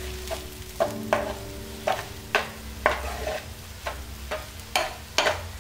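Metal ladle stirring and scraping crushed chili frying in oil in a frying pan, with about two scraping strokes a second over a low sizzle.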